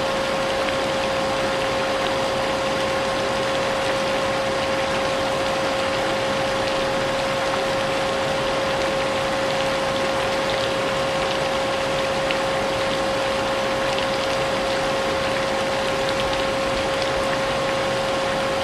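Vacuum cleaner motor running steadily with a constant mid-pitched whine, mixed with the even hiss of falling rain.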